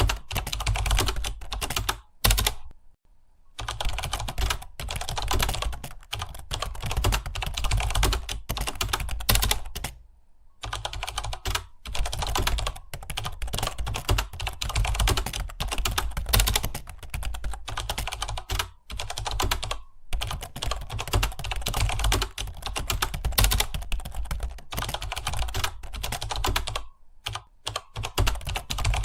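Fast, continuous typing on a computer keyboard, many rapid key clicks, broken by short pauses of about a second a few times.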